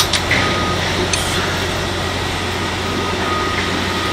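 Steady engine hum of a running engine-drive welder or generator, with a few sharp metallic clicks in the first second and another about a second in. A faint high tone comes and goes.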